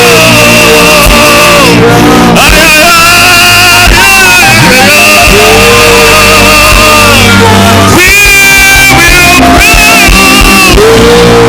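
Very loud church music with a voice holding long, wavering notes over steady low instrumental tones.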